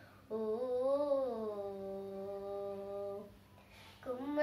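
A young girl singing a Telugu devotional keertana unaccompanied, holding one long wordless note that rises and then falls in pitch. It breaks off about three seconds in, and after a short breath she starts the next line near the end.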